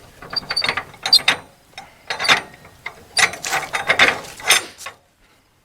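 Metal ratchet clicking and gear rattle from a Norwood portable sawmill's hand-cranked mechanism, being worked in uneven spurts as part of the mill is lowered. It stops suddenly near the end.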